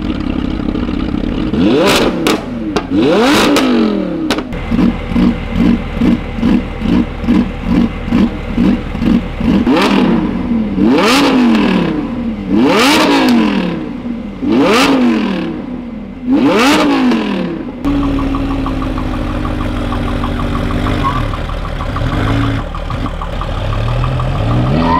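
Lamborghini Huracán drift car's V10 being free-revved: single sharp blips that climb and fall back, a run of quick blips at about three a second, then several long revs high up the range. It then drops to a steady idle, and near the end the revs climb as the car pulls away.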